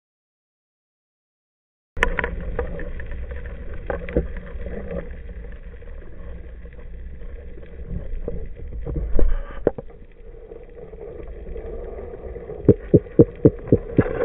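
Underwater ambience picked up by a submerged camera: a steady rush of moving water with a low rumble, after two seconds of silence. It is broken by scattered sharp clicks and knocks, and near the end by a quick run of about six clicks.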